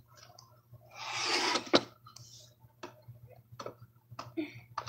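Handling sounds from a plastic upright vacuum cleaner being tipped over: a short rustle about a second in, then scattered soft clicks and taps. The vacuum's motor is not running.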